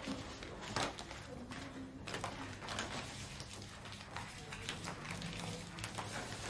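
Faint paper rustling and a few light knocks at a butcher's counter as minced meat is wrapped, over a low steady hum.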